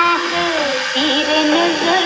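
A Hindi film song playing through the small speaker of a Philips Prince Deluxe transistor radio, a voice carrying a wavering, sliding melody over the accompaniment.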